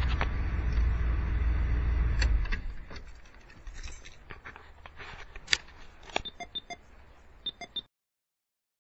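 Dodge 360 V8 engine running, then shut off about two and a half seconds in. After it, a few sharp clicks and light metallic jingles.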